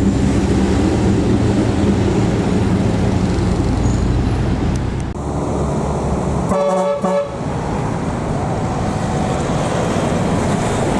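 A bus's diesel engine running loud and close. A little past halfway comes a short burst from a basuri telolet horn, a quick run of musical notes.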